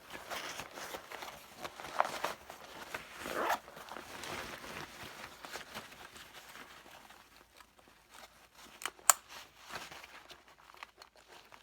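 Rustling and crinkling as a backpack is handled and its compartments are worked, with a sharp click about nine seconds in.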